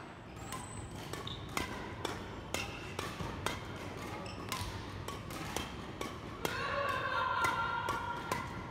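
Badminton racket strings hitting shuttlecocks in a backhand defence drill: a run of sharp, quick hits about twice a second on a wooden-floored court.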